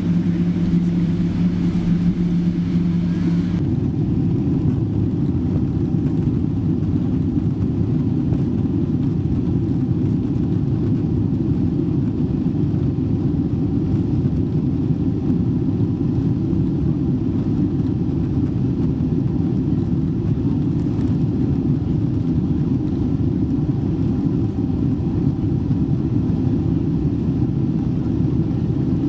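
Boeing 777 cabin noise on the ground: a steady low rumble of the engines and the wheels rolling on the tarmac. A steady hum sits on top for the first three and a half seconds, then stops abruptly.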